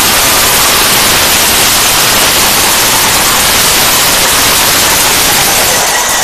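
Spectators applauding in the stands, a loud, even wash of clapping that eases off near the end.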